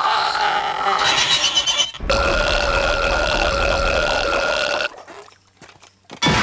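Cartoon character's exaggerated voiced burps in a burping contest: a burp of about two seconds, then one long, steady burp held for about three seconds that stops abruptly.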